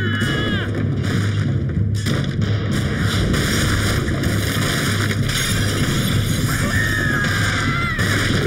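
Cartoon destruction sound effect of a house being smashed apart: a loud, continuous crashing rumble, with a brief high squeal near the start and another near the end.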